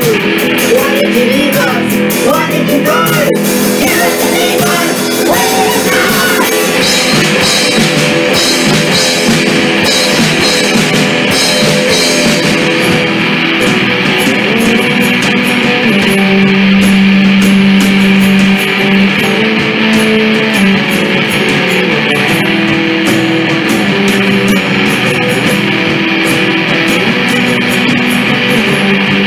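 Rock band playing live through a PA: electric and acoustic guitars over bass and a drum kit, with cymbals more prominent in the first half.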